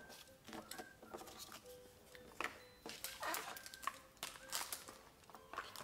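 Cardboard game tiles and pieces clicking and tapping on a table as they are gathered up, with a plastic bag crinkling about three seconds in.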